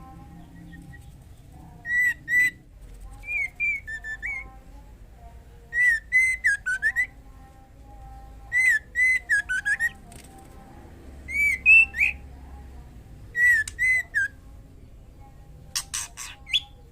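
Female white-rumped shama calling: short phrases of clear whistled notes that dip and slur, repeated about every two seconds, with a quick run of sharp, high notes near the end.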